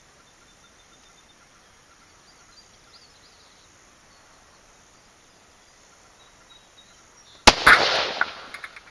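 A single rifle shot from a Ruger American Predator in 6.5 Creedmoor fitted with a muzzle brake: one loud, sharp crack about seven and a half seconds in that dies away over about a second, with a few fainter cracks trailing after it.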